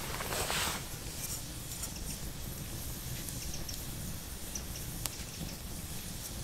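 A metal spoon spreading tomato sauce over pizza dough in a parchment-lined camping pot, with soft scraping and squishing. A brief rustle comes about half a second in, over a low steady rumble.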